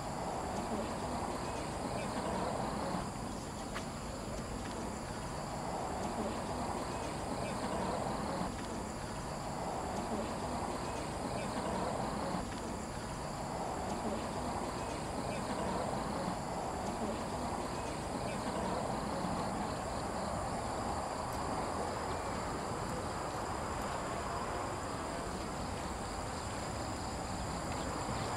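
Steady high-pitched insect drone, several tones held at once, over a wash of background noise that swells and fades every few seconds.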